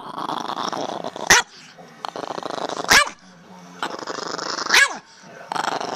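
Chihuahua growling in stretches of about a second, each broken off by a short sharp bark, three barks in all. The dog is objecting to a hand holding its muzzle shut.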